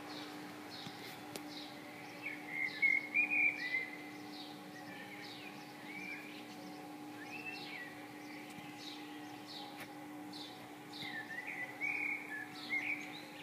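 Songbirds calling: a steady series of short, high, falling notes about twice a second, with louder warbled song phrases twice, about two seconds in and near the end, over a steady low hum.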